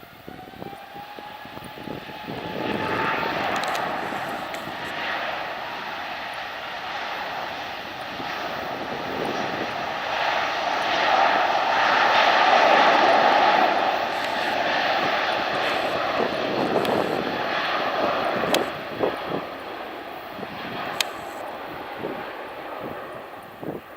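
Airbus A350-900 jetliner taking off, its Rolls-Royce Trent XWB turbofans at takeoff thrust. The roar builds with a rising whine, is loudest about halfway through, then fades away.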